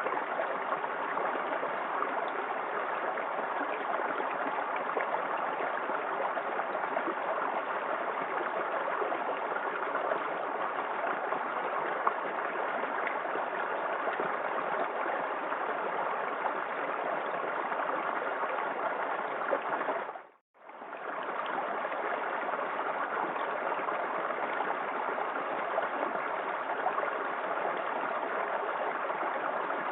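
Small waterfall in a forest creek: water splashing and rushing steadily. About two-thirds of the way in, the sound cuts out for a moment and then fades back in.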